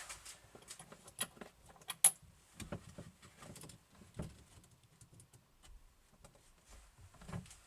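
Small metal hardware being handled: a run of light, irregular clicks and clinks from a magnetic catch, its steel strike plate and screws. The sharpest click comes about two seconds in.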